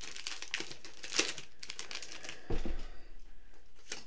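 Foil Pokémon TCG booster pack wrappers crinkling in the hands as they are torn open, with a dull knock about two and a half seconds in.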